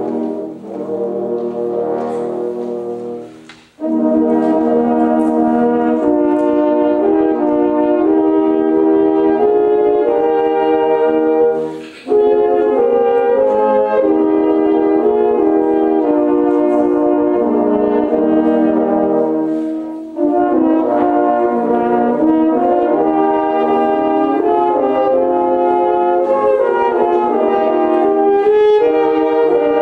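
French horn ensemble playing in several-part harmony, sustained chords moving from note to note, with short breaks between phrases just before four seconds in, about twelve seconds in, and about twenty seconds in.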